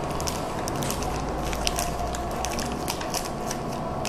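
Steady low hum and hiss with a faint steady tone, dotted with many small, quick clicks and crackles.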